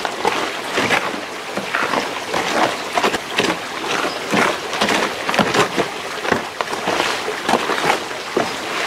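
A hand trowel scraping and turning lumpy, wet concrete mix in a plastic mixing tub, with repeated gritty scrapes, several a second, as the water is worked into the dry mix.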